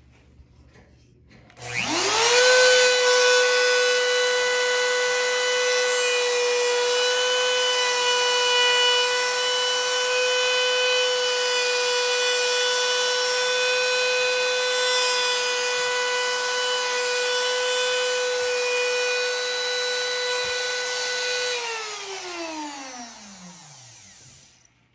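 Router in a binding-channel jig switched on, its motor whining up to full speed about two seconds in. It runs at a steady high whine while a test cut is made in a scrap block. Near the end it is switched off and winds down, the whine falling in pitch until it stops.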